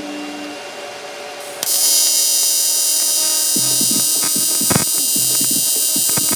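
TIG welding arc on an aluminium intercooler end tank, struck suddenly about a second and a half in and then buzzing and hissing steadily, with a light irregular crackle from about three and a half seconds in.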